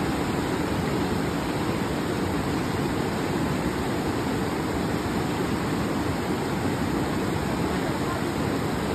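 A fast mountain river rushing over rocks: a steady, unbroken noise of white water.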